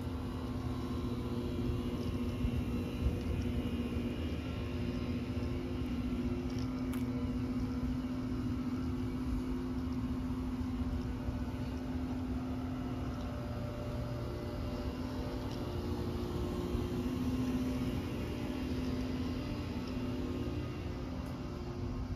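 Outdoor air-conditioner condenser units running: a steady mechanical hum over a low rumble.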